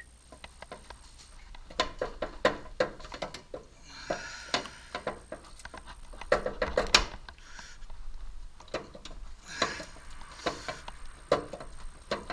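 Irregular clicks, taps and knocks of a hand wrench being worked on a bolt on the car, with a quick run of clicks about halfway through and rustling between.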